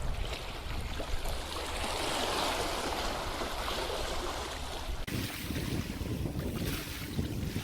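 Sea waves washing against a rocky shore, with wind buffeting the microphone. About five seconds in, the sound changes abruptly to a lower, gustier rush of wind.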